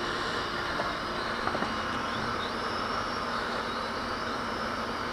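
A small quadcopter's motors and propellers whining faintly in flight, the pitch wavering as the throttle changes, over a steady hiss.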